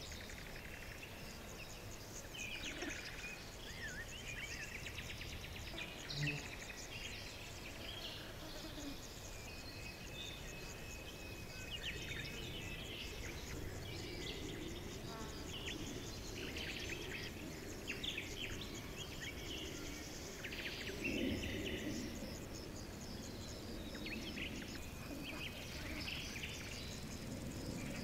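Several wild birds chirping and trilling, with many short high calls overlapping throughout, over a steady hiss of outdoor background noise.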